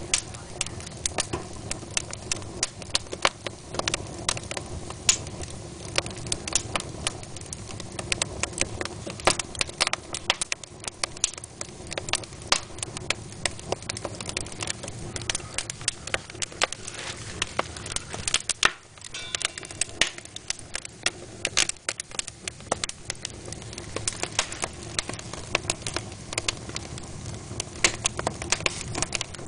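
Wood fire crackling in a fireplace: many sharp, irregular pops and snaps, several a second, over a steady hiss of burning logs.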